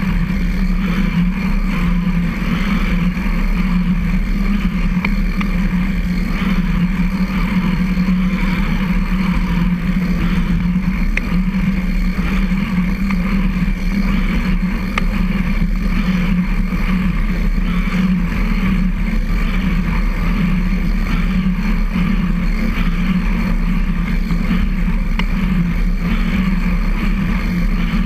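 Recumbent trike rolling along a concrete trail: a steady low hum and rumble from the tyres and chain drivetrain, picked up close by a camera on the front boom.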